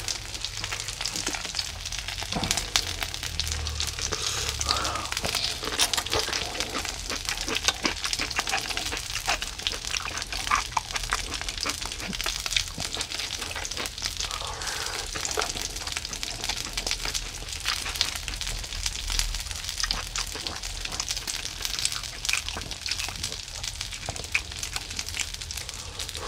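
Mackerel fillets sizzling in oil on a hot electric grill pan: a steady frying hiss with many small crackles and pops.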